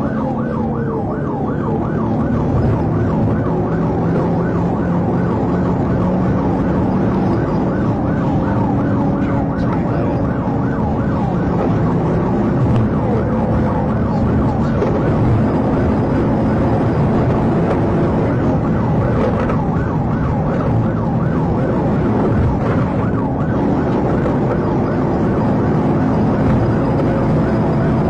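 An electronic siren sounding a fast up-and-down yelp, about three to four cycles a second, over a steady low rumble.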